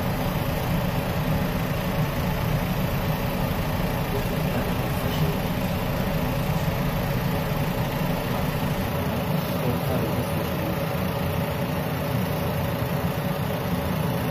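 Glass OTIS machine-room-less traction elevator cab on the move, heard from inside the cab as a steady low rumble with a faint even hum above it.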